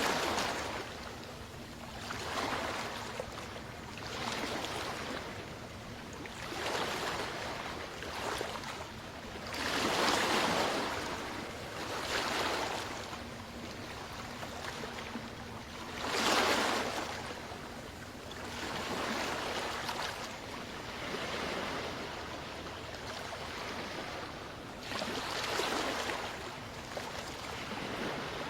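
Ocean waves breaking and washing up a beach, one surge of surf every two to three seconds, the biggest breaking about a third of the way in and just past the middle.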